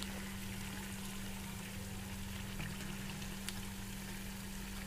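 Bonda batter fritters deep-frying in hot oil in an iron kadai: a steady sizzle with scattered small crackles. A steady low hum runs under it.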